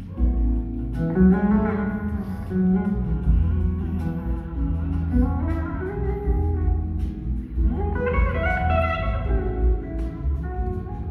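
Live blues-rock band playing, led by an electric slide guitar whose notes glide up in pitch, over heavy, boomy bass and drums.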